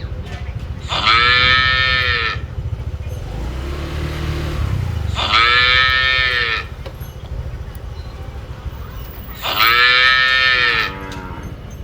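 Cow mooing: three loud moos about four seconds apart, each lasting over a second and rising then falling in pitch, with a fainter, lower moo between the first two, over a steady low rumble.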